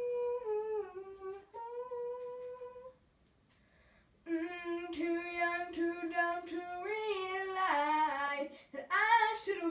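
A girl singing wordless, unaccompanied vocal runs: a held note for about three seconds, a short pause, then a longer line of sustained notes that step up and down and waver near the end.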